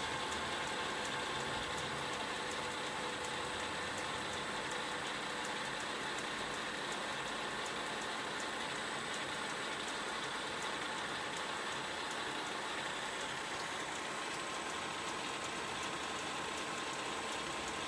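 Mikron F75 milling machine running steadily with its added three-phase electric table power feed: a constant mechanical whirr with a faint steady high whine.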